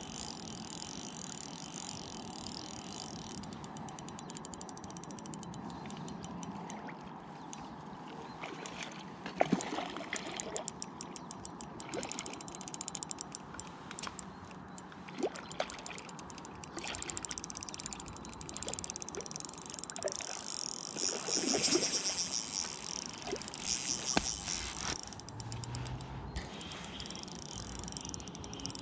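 Water splashing and trickling as a hooked trout is played and brought in at the surface, with scattered sharp clicks and knocks from the tackle. The splashing is loudest about three quarters of the way through.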